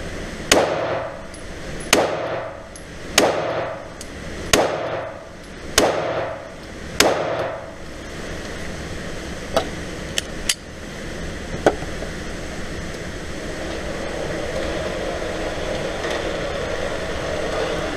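Glock 26 9mm subcompact pistol fired six times in slow, steady succession, each shot a sharp report ringing in an indoor range. Several fainter sharp cracks follow over a steady ventilation hum.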